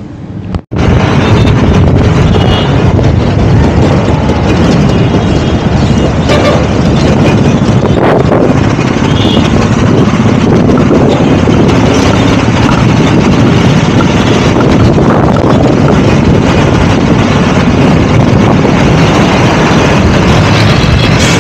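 Loud, steady wind rumble buffeting the microphone of a camera held outside a moving tanker lorry, over the lorry's road and engine noise. It cuts in abruptly about half a second in.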